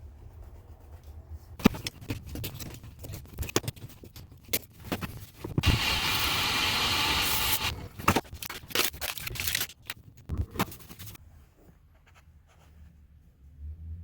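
Hand work on a toilet repair: a run of sharp clicks, knocks and scrapes, with a steady hiss lasting about two seconds in the middle.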